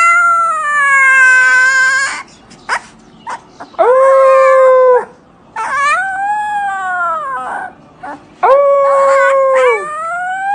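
Husky puppy howling: five drawn-out, high-pitched howls, each one to two seconds long with short breaks between, some held level and some arching up and back down in pitch.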